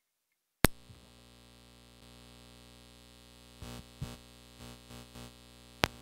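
Mixer output from an analog XLR-over-CAT6 extender run on an unshielded CAT6 jumper. A sharp click about half a second in, then a steady hum and buzz made of many stacked pitches: noise picked up by the unshielded cable. A few handling bumps come near the end, and another sharp click just before the end.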